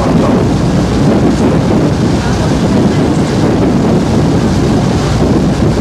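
Wind buffeting the microphone over the steady low running of a passenger boat under way, its engine and the water along its hull making a continuous rumble.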